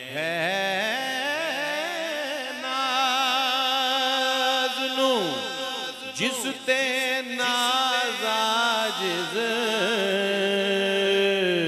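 Male voice singing a devotional kalam without instruments, drawing out a long, ornamented note with vibrato over a steady held drone. About five seconds in the voice slides steeply down, and a few sharp clicks follow.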